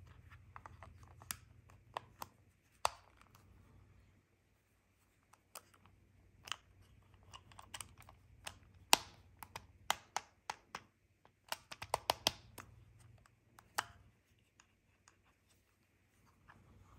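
Plastic clicks and rattles of a dash cam's suction-cup windshield mount being fitted and worked on the camera body, as irregular sharp clicks with a quick run of them about two thirds of the way through.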